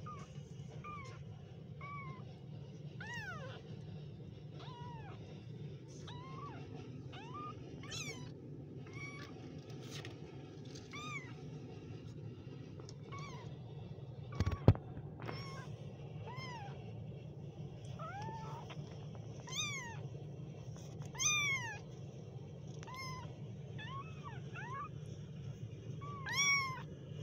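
Very young kittens mewing over and over, short high-pitched cries that rise and fall, some louder near the end, over a steady low hum. A single sharp click about halfway through.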